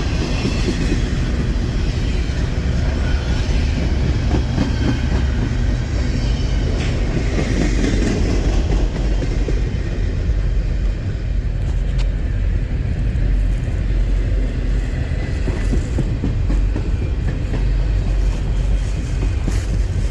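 Freight train of loaded trash cars rolling past, a steady low rumble of wheels on rail.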